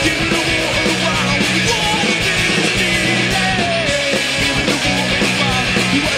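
Rock band playing live and loud: drum kit and electric guitars.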